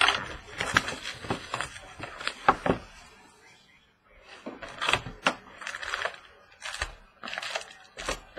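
A box of trading cards being opened by hand: crinkling wrapper, tearing and cardboard knocks, in irregular bursts with a short lull partway through.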